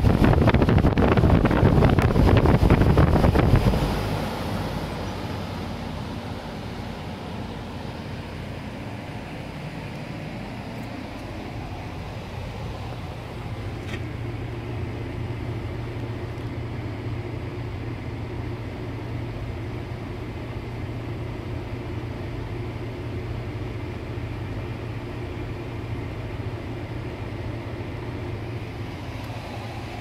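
Carrier 48TFE008 rooftop packaged unit running. For the first four seconds the condenser fan's air stream rushes loudly over the microphone. After that the unit settles into a steady running hum with a low drone.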